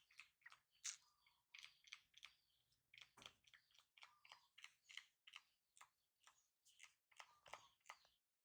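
Faint chewing: quick, irregular wet clicks and smacks, several a second.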